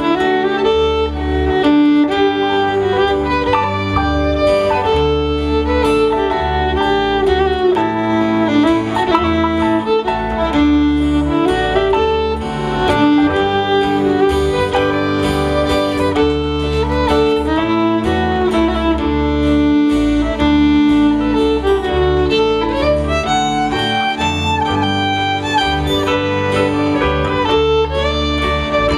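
Fiddle playing a waltz in D, bowing sustained melody notes, accompanied by strummed acoustic guitar.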